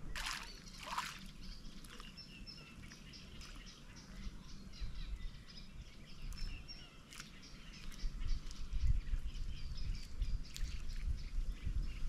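Small birds singing in the reeds with quick, repeated high chirping notes, over low wind rumble on the microphone that grows stronger in the second half. There are two brief rustles near the start.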